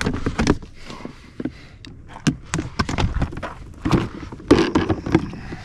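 Irregular knocks and clatter of window-cleaning tools being handled in a plastic bucket of water, with footsteps on gravel.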